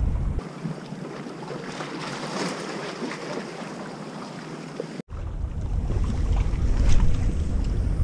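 Wind buffeting the microphone over small sea waves washing and splashing among shoreline rocks. The sound drops out for an instant about five seconds in, and the wind rumble comes back stronger afterwards.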